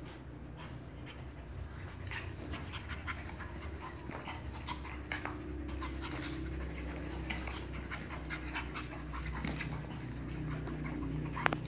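Chinese Crested puppies playing with toys on a tile floor: panting, with many small clicks and scuffles throughout.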